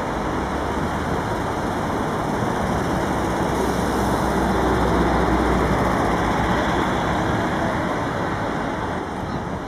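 Steady city street traffic noise: a continuous rush of cars and engines that swells a little toward the middle and eases near the end.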